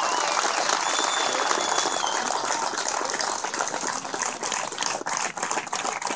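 Crowd applauding and cheering, with a thin whistle about a second in; the clapping slowly thins out toward the end.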